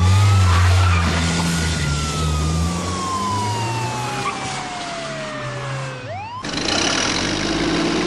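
Police car siren wailing over a rumbling car engine: one slow wail that climbs quickly and then falls slowly over about five seconds, starting to climb again just before it cuts off abruptly. About six seconds in, an excavator's engine and machinery take over with a dense rumble and clatter.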